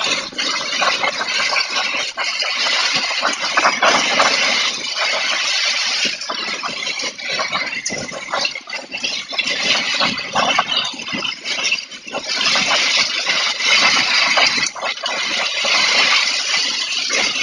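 Heavy rain pouring down with gusting wind, a dense hiss that swells and eases every few seconds.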